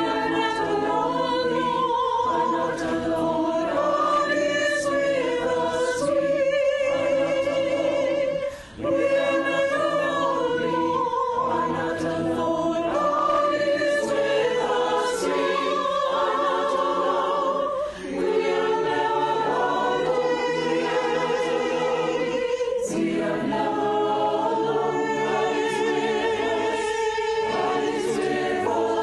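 Choir singing a slow hymn in long, held notes, with two brief dips about nine and eighteen seconds in.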